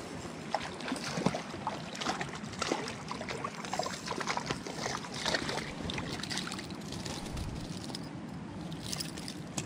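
Creek water trickling over stones, with a run of irregular splashes over the first several seconds as a hooked trout is reeled in and lifted out of the water.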